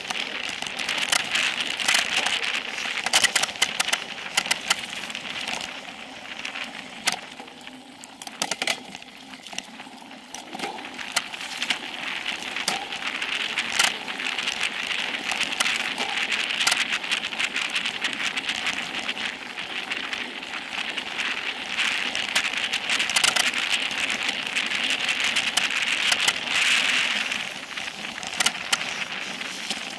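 Specialized Epic Pro mountain bike running fast down dirt singletrack: a constant hiss of knobby tyres on dirt and gravel, broken by many sharp clicks and rattles as the bike bounces over the trail. It is picked up close to the rear wheel by a seat-post camera and eases off briefly about eight seconds in.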